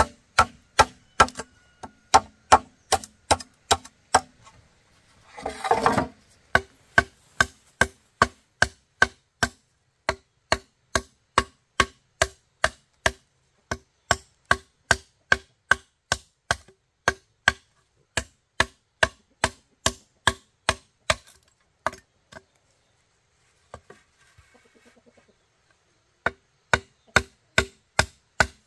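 Bamboo being struck over and over with a tool at an even pace, about two sharp knocks a second, each with a short ringing note. A brief rasping crash comes about six seconds in, and the knocking stops for a few seconds near the end before starting again.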